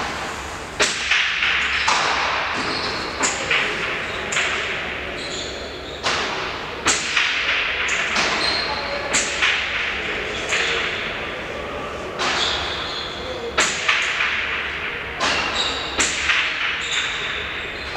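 A remonte rally: the hard pelota ball smacks against the fronton's walls and floor over and over at irregular spacing, each hit echoing around the large hall.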